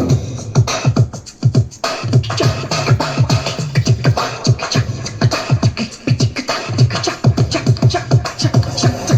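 Instrumental break of a Hindi film song: a quick, busy beat of drum hits that drop in pitch, about three to four a second, without vocals. The beat thins out briefly about a second in.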